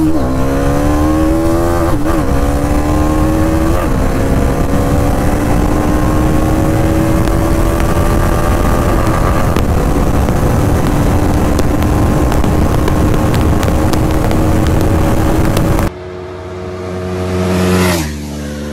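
Bajaj Dominar 400's single-cylinder engine at full throttle heard from the bike, under heavy wind noise. Its pitch climbs through two quick upshifts in the first four seconds, then rises slowly as the bike nears top speed. Near the end the bike passes a roadside microphone at speed, its engine note rising as it approaches and dropping as it goes by.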